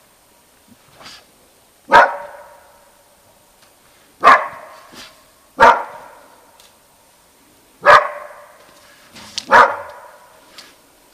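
Large black-and-tan dog barking in single, sharp barks, five loud ones spaced one to two seconds apart with a few fainter ones between, each dying away briefly afterwards.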